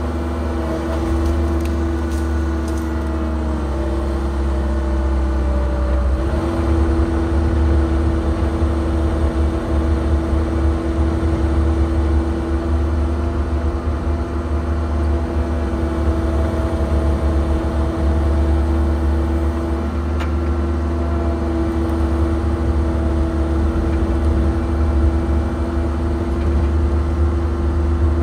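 Cat 306 excavator running under hydraulic load as its boom and grapple move, heard inside the cab: a steady engine hum with several held tones. The tones sag about four seconds in and pick back up a couple of seconds later as the load changes.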